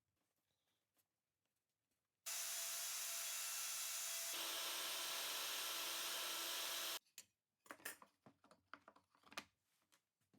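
A power tool runs steadily for nearly five seconds, starting and stopping abruptly, its tone changing about halfway through. It is followed by a run of light knocks and rubbing of wood.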